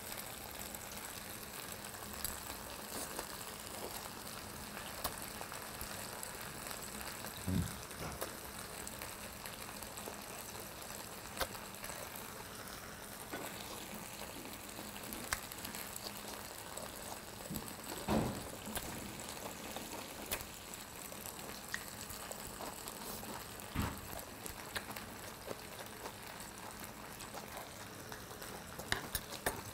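Grilled pork ribs sizzling steadily on a hot iron serving plate that keeps the meat warm, a soft constant hiss, with a few brief soft knocks along the way.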